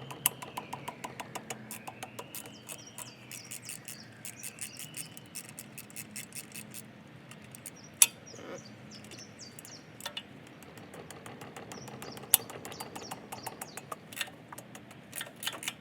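Ratchet wrench clicking in quick runs while loosening exhaust downpipe bolts, followed by a few sharper single metal clicks. A faint tone rises and falls a few times over the first five seconds.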